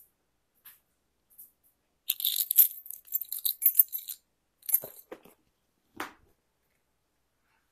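Handling noise: about two seconds of rustling and jingling, followed by a few clicks and a single knock.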